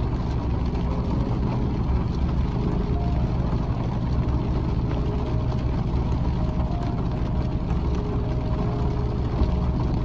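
Waterfall in a rain-swollen canyon creek: a steady, unbroken rush of falling water, heaviest in the deep low end.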